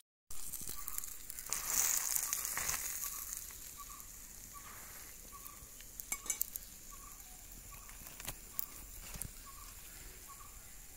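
Faint steady sizzle of chicken deep-frying in oil, with a soft short chirp repeating about twice a second and a few light clicks about six seconds in.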